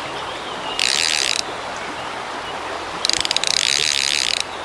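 Fishing reel being cranked in two short spells of rapid clicking whirr, one of about half a second and then a longer one of about a second and a half that opens with a few separate clicks, as line is wound in from a snagged cast. Fast creek water rushes steadily underneath.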